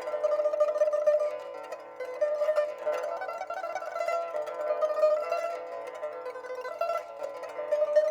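Background music: a plucked string instrument playing a flowing melody of quick notes.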